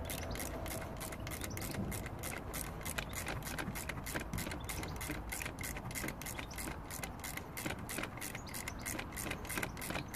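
Ratchet wrench clicking steadily, about four to five clicks a second, as the screws holding a replacement engine ECU are tightened.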